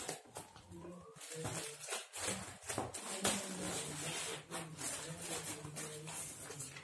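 Scissors cutting through a plastic courier mailer bag, with the plastic crinkling and rustling in irregular snips and crackles.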